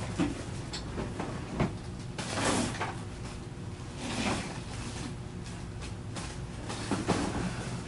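Someone rummaging through cupboards and drawers: a few sharp knocks and clunks, with brief rustling swishes between them.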